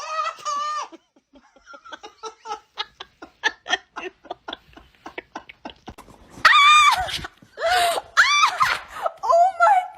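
A person laughing in quick, rapid bursts, then louder high-pitched laughing or shrieking about halfway through.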